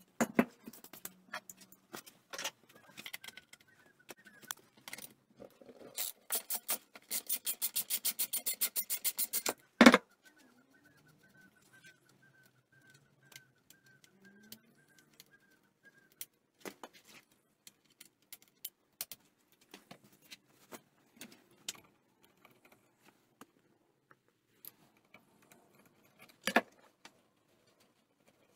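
Hand tools and small metal parts being handled on a Honda P50 moped's engine: a few seconds of rapid, even ratchet-wrench clicking, a loud clunk, then scattered small clicks and taps as wires and parts are handled.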